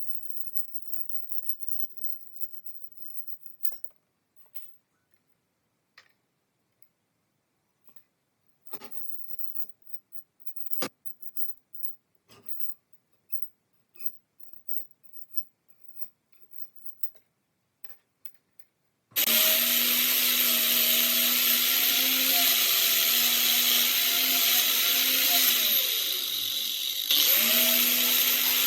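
Scattered light taps and clicks of small metal parts being handled. Then, about two-thirds of the way in, an electric power tool used in rust removal switches on abruptly and runs steadily with a constant hum. Near the end its pitch sags and it quiets for about a second before picking back up.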